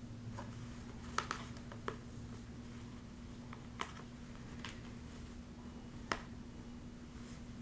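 Scattered light clicks and taps, about six in all, from embroidery floss being sorted and put away into storage bins, over a low steady hum.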